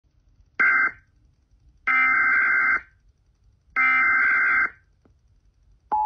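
Emergency Alert System SAME header: three bursts of digital data tones from a radio's speaker, the first short and the next two about a second long, spaced about one and a half seconds apart. The bursts carry the coded alert that opens an Amber Alert (child abduction emergency) broadcast.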